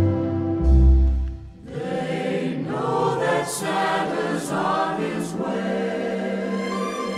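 Orchestral Christmas music: deep bass notes under held chords, then from about two seconds in a mixed choir sings a sustained phrase over the orchestra.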